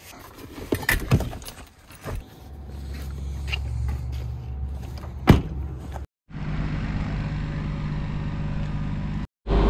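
A few sharp clicks and knocks, then a vehicle engine running steadily with a low hum. The sound cuts off abruptly twice and picks up again.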